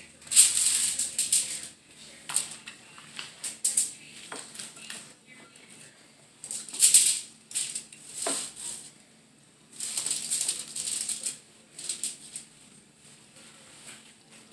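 Aluminium foil crinkling in irregular bursts as it is folded and crimped around a food packet.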